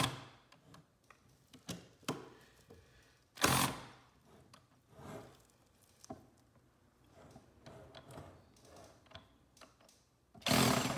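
Metal tools clicking and scraping on a paper shredder's steel cutter shaft as a screw is worked on, with two louder short bursts of noise, about three and a half seconds in and near the end. The screw head strips.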